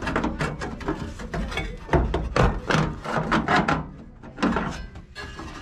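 Irregular knocks, clicks and scraping of metal parts as an evaporator fan motor and its blade are worked into the sheet-metal mounting bracket of the fan housing, the motor's studs being pushed into place.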